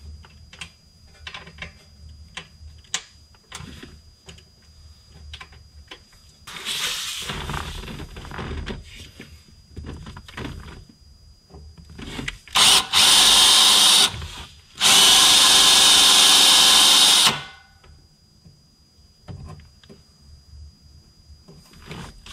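Cordless drill run in two bursts a little past halfway, a short one of about a second and a half and then a longer one of about two and a half seconds, driving a screw extractor into a stripped screw. Before the drill runs, light clicks and rattles of tools being handled.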